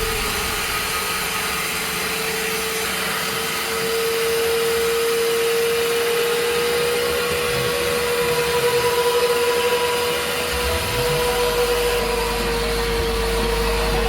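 Carpet cleaning machine running steadily: a held motor whine over a rushing hiss of air and suction, with a deeper hum coming in about ten seconds in.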